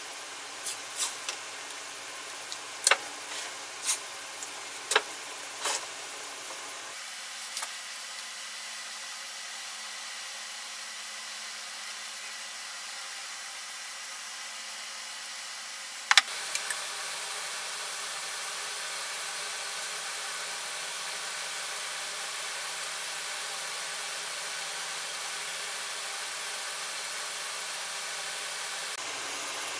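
Light clicks and taps of paint cans, a masking-tape roll and a plastic measuring cup being handled on a workbench, over a steady hiss. The taps cluster in the first few seconds, with one sharp click about halfway through.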